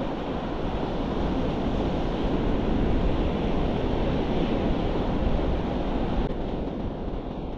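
Surf washing onto the beach with wind buffeting the microphone, a steady rushing noise that eases slightly in its upper part about six seconds in.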